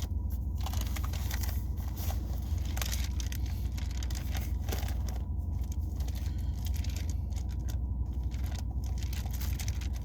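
Paper pages of a Bible rustling and crinkling as they are leafed through to find a passage, over a steady low hum.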